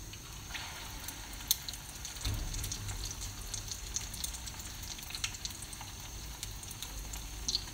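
Hot oil sizzling and crackling around egg-dipped potato-chicken kababs shallow-frying in a pan. The sizzle gets louder about two seconds in, as a fresh egg-coated kabab settles into the oil.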